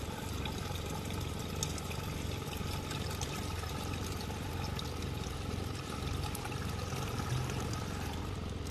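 Water poured steadily from a metal pot into the hose of a Honda petrol water pump. The water fills the hose to prime the pump before it is started.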